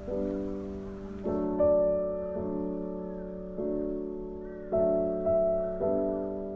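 Background music: a slow piano melody, a new note or chord struck about every second and left to fade.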